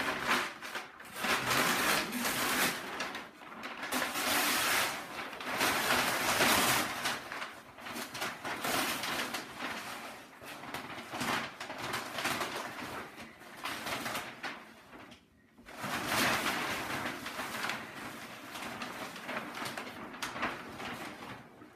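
Brown wrapping paper rustling, crinkling and tearing as it is pulled off a large framed painting by hand, in uneven bursts with a brief lull about two-thirds of the way through.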